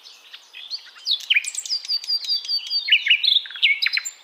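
Songbird singing: a fast run of clear, high chirping and whistled notes, several sliding down in pitch, growing louder about a second in.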